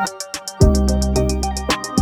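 Background electronic music with a deep bass, sustained synth notes and a fast, even high tick; the bass drops out briefly and comes back about half a second in.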